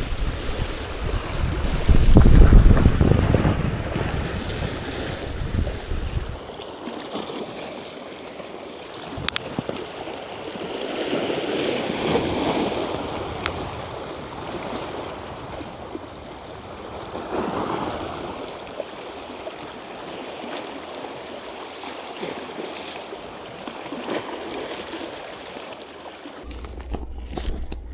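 Sea waves washing against a rocky shore, with wind rumbling on the microphone for the first six seconds or so. After that the surf is softer, swelling and fading every few seconds.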